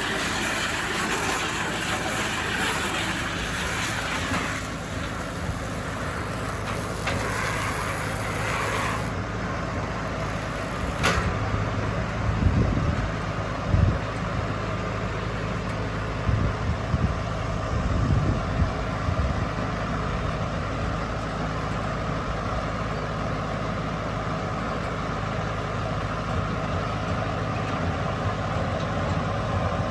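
Deutz-Fahr 5130 TTV tractor engine running steadily, with a run of heavy, irregular low thumps about halfway through. A high hiss cuts out suddenly about nine seconds in.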